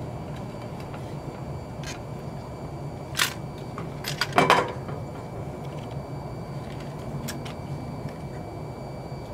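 A few sharp clicks of hard parts being handled, with a louder short clatter about four seconds in, over a steady low hum.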